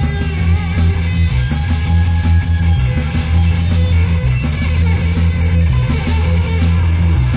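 Psychedelic rock recording: electric guitar playing over a loud bass line whose notes shift every second or so.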